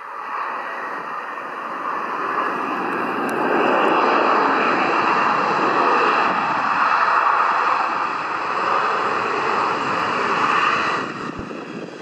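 Jet engine noise from an Embraer 175 regional jet rolling along the runway after landing: a dense noise that builds over the first four seconds, holds loud, then falls away about eleven seconds in.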